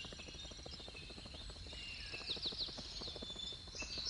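Jungle ambience: a steady high insect drone with a quick run of short bird chirps a little past the middle, over a faint low rumble.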